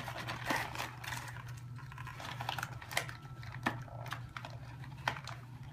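Scattered light clicks and taps of a doll being worked free of its plastic and cardboard packaging, over a low steady hum.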